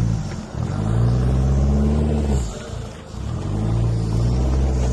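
Nissan Patrol 4x4 engine revving in two long pushes of throttle, easing off briefly about three seconds in.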